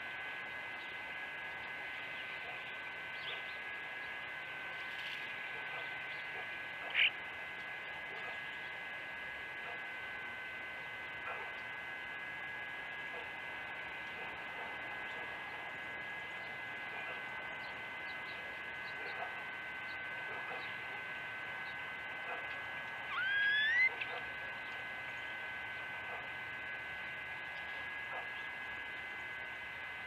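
Steady electrical hum from a webcam's audio, with two short bird calls over it: a brief sharp chirp about seven seconds in and a louder call that rises in pitch for about a second near the 23-second mark.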